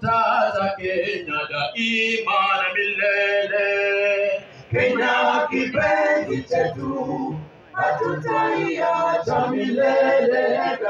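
Background music: a song led by male singing voices, with held sung notes and brief pauses between phrases.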